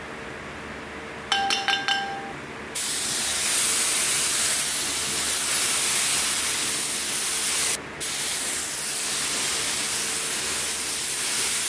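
A few ringing metallic clinks about a second in, then a gravity-feed paint spray gun with a 1.4 mm tip hissing steadily as it sprays clear coat. The compressed-air hiss cuts out once, briefly, a little past the middle, then resumes.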